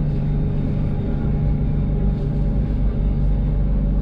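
BTS Skytrain car running along the line, heard from inside the cabin: a steady low rumble with a few faint steady tones over it.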